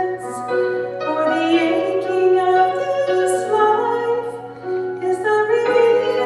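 A woman singing held, stepping melody notes over piano accompaniment.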